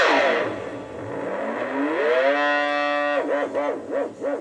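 Electric guitar note through a DigiTech Whammy DT on its dive-bomb setting. The pitch swoops steeply down to a deep growl and glides back up to the original note about two seconds in. Near the end it is rocked rapidly up and down in a fast warble.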